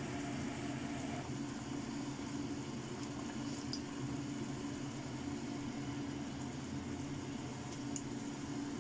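Water boiling hard in a stainless steel wok as choy sum blanches, a steady bubbling hiss under a low hum. There are a couple of faint ticks as chopsticks turn the leaves.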